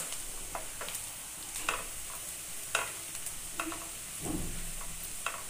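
Spatula stirring and scraping browned onions and roasted gram flour in oil in a nonstick kadai, over a steady sizzle of frying. Sharp taps and scrapes of the spatula on the pan come irregularly, about once a second, with a duller knock about four seconds in.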